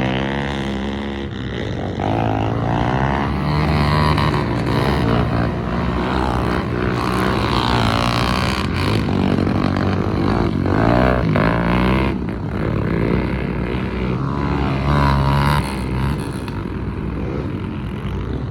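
Motorcycle engine running, its revs rising and falling again and again.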